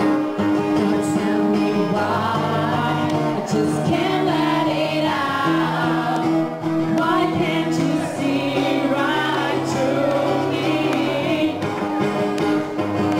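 A song: a singing voice over acoustic guitar accompaniment.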